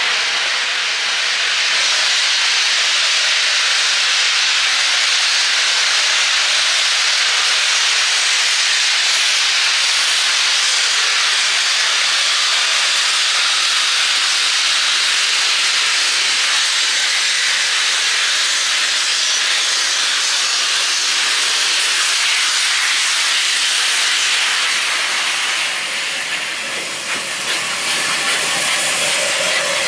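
Bulleid West Country class steam locomotive 34092 City of Wells passing close with its cylinder drain cocks open, blowing a loud, steady hiss of steam. The hiss eases slightly near the end, with a few short knocks.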